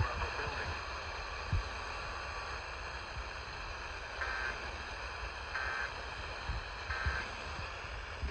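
Hissy, noisy radio broadcast audio with a low rumble and faint steady tones underneath. About halfway through come three short warbling data bursts about a second apart: the Emergency Alert System end-of-message code closing the alert.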